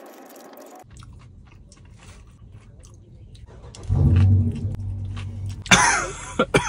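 A person chewing a mouthful of crispy fried chicken sandwich, with small crunches and mouth sounds. About four seconds in comes a loud, steady closed-mouth hum. Near the end there is a sharp cough and a couple of short follow-up coughs.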